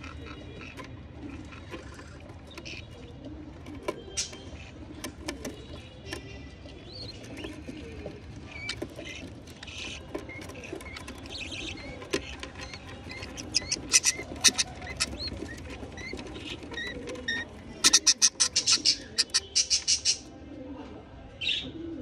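Budgerigar chicks chirping in the nest box as they are fed, short high cheeps scattered throughout, with a loud run of rapid chirps, about five a second, near the end.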